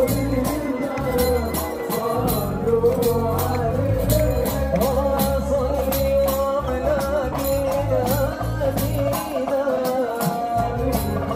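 Tunisian Sufi hadra music: a group of men chanting together over bendir frame drums beating a steady, even rhythm.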